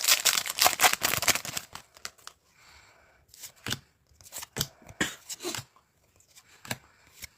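Foil trading-card booster packs being torn open: a dense crinkly tearing for about the first two seconds, then scattered rustles and light clicks as the wrapper and cards are handled.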